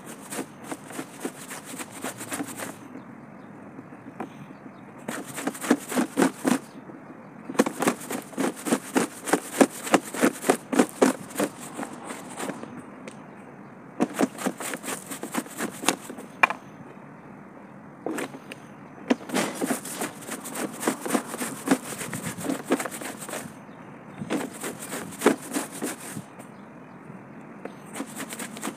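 Stiff-bristled push broom scrubbing wet, soapy denim jeans laid on a flat panel, in quick back-and-forth strokes. The strokes come in bursts of a few seconds with short pauses between them.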